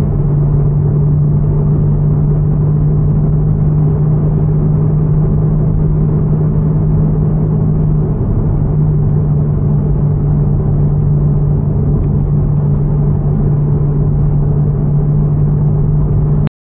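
Ferrari 812 Superfast's naturally aspirated V12 heard from inside the cabin while driving: a steady low engine drone that shifts slightly in pitch about eight seconds in, then cuts off suddenly near the end.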